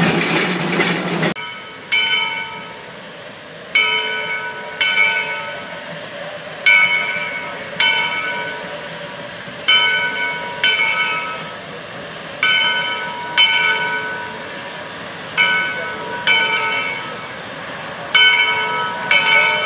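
Steam locomotive bell ringing from a swinging clapper: pairs of strikes about a second apart, a new pair every three seconds or so, each one ringing out and fading. The bell is on a Shay geared logging locomotive.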